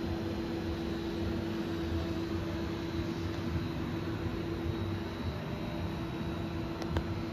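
Steady machine hum: fan-like noise with a constant mid-pitched tone and a low rumble, as from cooling fans or idling shop machinery. One short click near the end.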